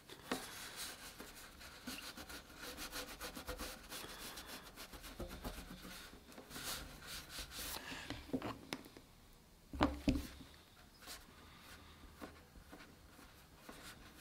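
Fingertip rubbing and pressing wood filler into a crack in a solid mahogany tabletop: faint, scratchy rubbing strokes, with two louder knocks about ten seconds in.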